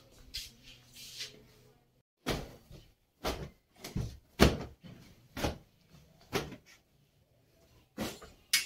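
A dusting cloth slapped against a wooden door and its frame, about eight sharp whacks at roughly one a second.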